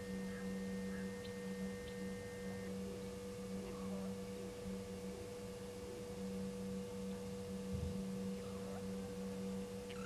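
A steady electrical hum with a constant higher tone, with a few faint, scattered bird chirps over it.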